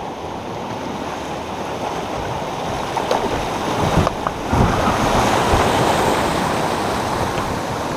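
Rushing water pouring over a small creek waterfall, swelling louder about halfway through, with a few low thumps around the middle.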